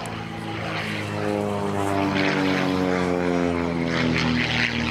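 Propeller engine of an aerobatic biplane flying a display, a steady buzz whose pitch slides slowly down.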